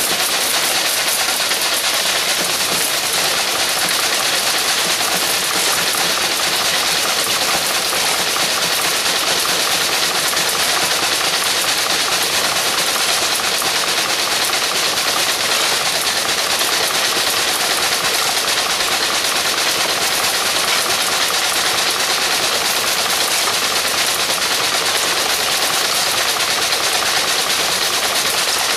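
Homemade motorised soil riddle running: a single-phase electric motor drives reduction pulleys and a crank arm that shakes the sieve tray, giving a steady, fast rattle as stony soil is graded through the mesh.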